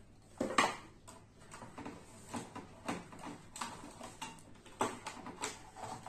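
Light irregular clicks and scrapes of a screwdriver and wire at the terminal screws of a 3-phase rotary phase selector switch as the red phase wire is fastened, the loudest click about half a second in.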